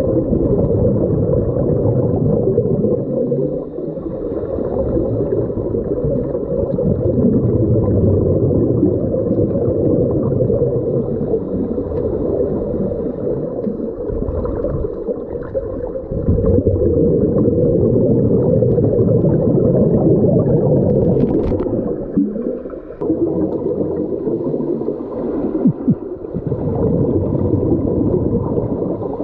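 Underwater camera sound: a loud, muffled, continuous rumble and gurgle of water, with bubbles from divers' scuba regulators. It dips briefly a few times.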